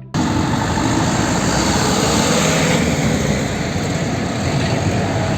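Water spraying hard from a hose nozzle: a steady, loud hiss that starts suddenly and cuts off suddenly.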